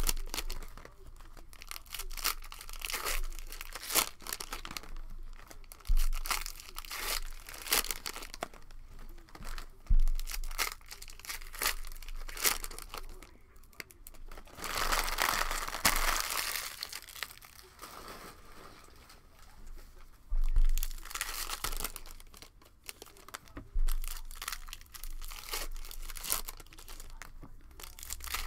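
Cellophane trading-card pack wrappers (Panini Optic cello packs) being crinkled and torn open by hand, in a run of crackles with a longer stretch of tearing midway. A few dull thumps of handling on the table come in between.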